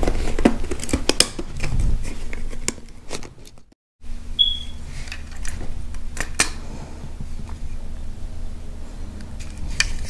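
Hands handling a hard plastic bracket and a hard-shell bag: a run of plastic clicks, knocks and rubbing. The sound drops out briefly just before the midpoint, then comes back as a low steady hum with a few scattered clicks.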